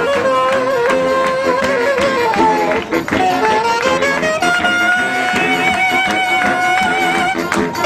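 Balkan-style brass band playing a lively tune. A saxophone carries the melody, moving at first and then holding one long note from about halfway, over a steady pulsing accompaniment from accordion, tuba and bass drum.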